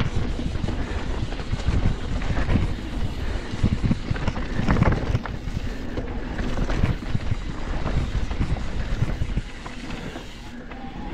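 A YT Decoy e-mountain bike rolling fast down a dirt trail. The tyres and suspension make a rumble and clatter, with frequent knocks over bumps and wind buffeting the helmet-camera microphone.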